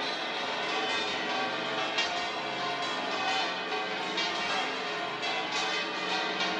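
Church bells pealing: many bells ringing over one another in a dense, continuous clangour, with single strokes standing out now and then.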